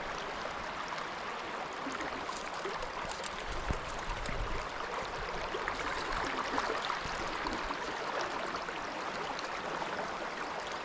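Mountain trout stream running over its bed, a steady, even babble of water.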